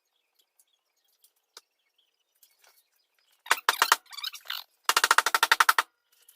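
Pneumatic wrench rattling in two short bursts of rapid hammering strikes, working bolts loose or tight under the car.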